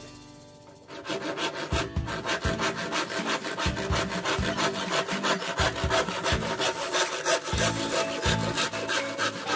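Hand saw cutting across a green bamboo (bambu Jawa) pole, a steady run of back-and-forth strokes that starts about a second in.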